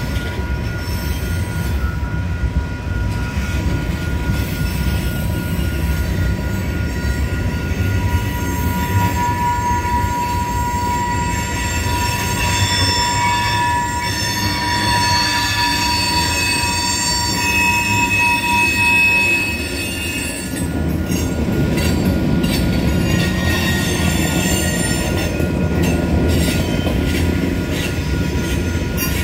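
Freight train of tank cars rolling past: a steady rumble of wheels on rail, with high-pitched wheel squeal that dies away about two-thirds of the way through.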